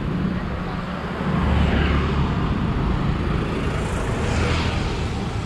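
Road traffic heard from a moving bicycle: motorcycles passing close by, swelling up and fading twice, once about a second and a half in and again near the end, over a steady low rumble.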